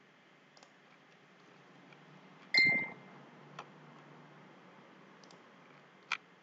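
A few faint, scattered computer mouse clicks. About two and a half seconds in there is one louder short knock with a brief ringing tone.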